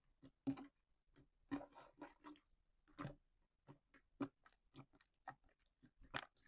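Slime being worked by hand, making irregular sticky, wet clicks and squelching pops, a few a second.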